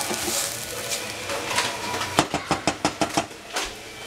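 Shredded cabbage, celery and bell pepper stirred in a stainless steel saucepan, with a quick run of about seven clicks of the utensil against the pan about halfway through, then one more click.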